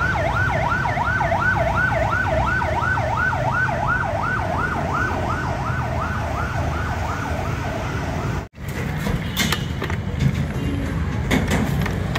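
Emergency-vehicle siren yelping, about three quick rising-and-falling sweeps a second, over steady traffic noise. It cuts off suddenly after about eight and a half seconds, leaving street noise with scattered clicks.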